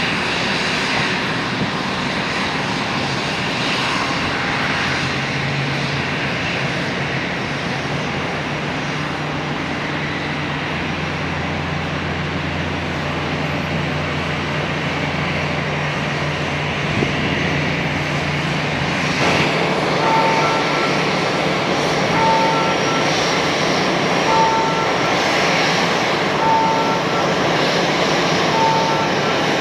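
Airbus A320 jet engines running steadily as the airliner taxis. About two-thirds of the way through, the sound changes suddenly to a steady wider roar with a two-note electronic beep repeating about every two seconds.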